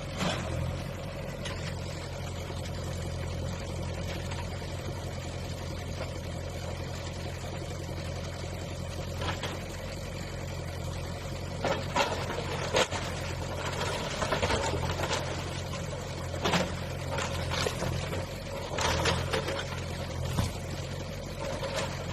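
Diesel engine of a demolition bulldozer running steadily, with scattered knocks and clatters of breaking and falling debris, several of them in the second half.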